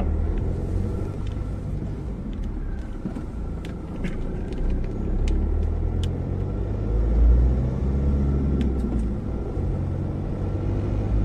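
A car's engine and tyres rumble steadily, heard from inside the cabin while driving, rising and falling a little in loudness, with a few faint light ticks.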